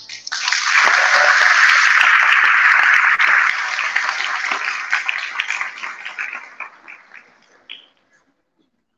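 Audience applauding just after the last violin notes, full at first and then dying away over several seconds.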